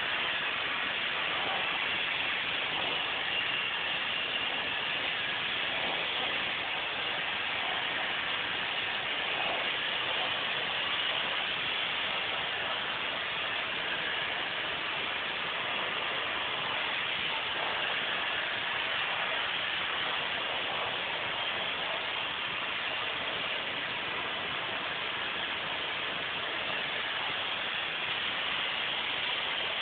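Steady rushing air in an automotive paint spray booth, an even hiss whose level barely changes throughout.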